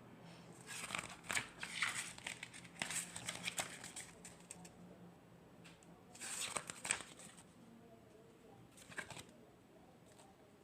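Packaging crinkling and rustling as it is handled, in a run of rustles through the first few seconds, another burst about two-thirds of the way in, and a short one near the end.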